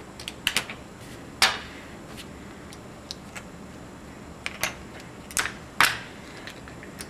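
Casino chips clicking against each other and against the dealer's chip tray as they are picked up, handled and set back down: irregular sharp clicks, the loudest about a second and a half in and again near six seconds.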